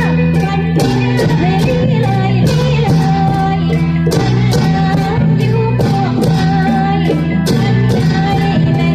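Dance music: singing over a plucked-string melody, a steady low drone and a regular percussion beat about two strokes a second.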